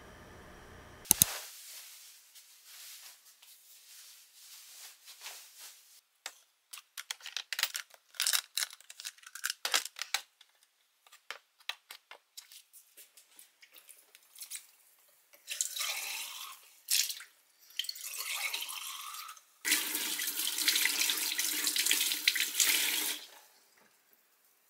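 Kitchen tap running into a glass vase in a stainless-steel sink: a few short spurts, then a steady stream for about three and a half seconds near the end, as the flower water is changed. Before that, a run of small clicks and rustles of things being handled on a desk.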